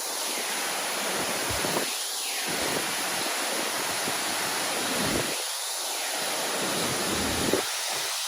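Steady rush of falling water from a waterfall, with gusts of wind buffeting the microphone every second or two and a short bump near the end.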